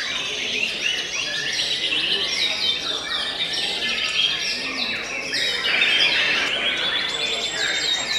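White-rumped shama (murai batu) song: rapid, varied whistles, trills and chirps, several overlapping at once in a dense, unbroken chorus.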